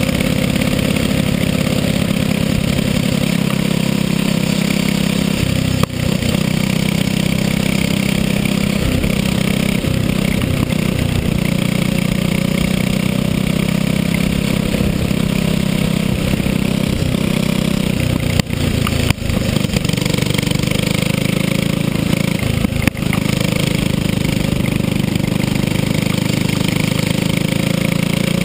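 Racing kart's engine running steadily at race speed, heard onboard, with its note dipping briefly a few times.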